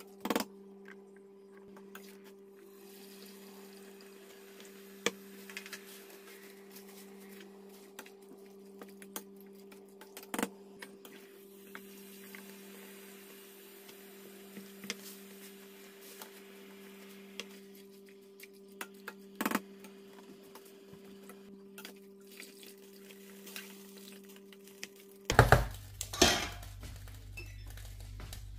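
Occasional clinks and knocks of a utensil against a cooking pot and dishes as batches of blanched chard leaves are lifted out and moved into cold water, over a steady low hum. Near the end the hum stops and louder clattering follows.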